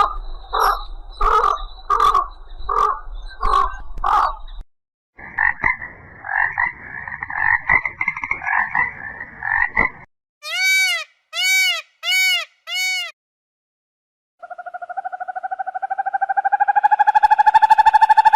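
A run of separate animal-call recordings in turn. First come about six pulsed calls, then a few seconds of steady trilling, then four short whistled calls that each rise and fall, and last a rising, buzzing call that grows louder near the end.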